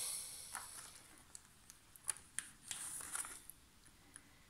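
Faint rustling and crinkling of a diamond painting canvas's protective paper sheet being handled, with a few soft ticks scattered through.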